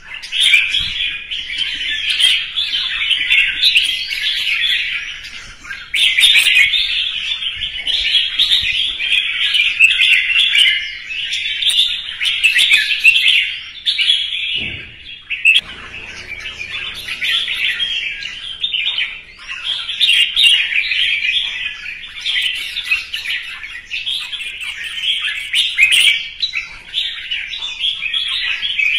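Red-whiskered bulbul singing a loud, rapid run of song phrases with hardly a pause, breaking off briefly about six seconds in and again around the middle.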